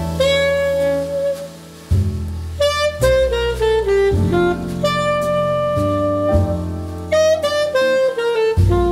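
Jazz background music: a saxophone plays a melody with falling runs of notes over a bass line.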